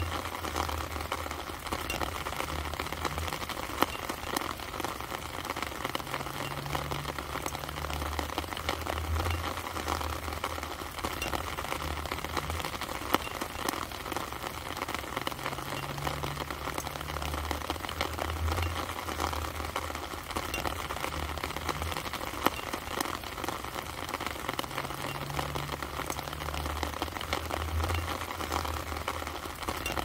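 Steady rain pattering on rose leaves: a continuous hiss of many small drop hits, with an occasional sharper single drop. Under it runs a low rumble that swells and fades every few seconds.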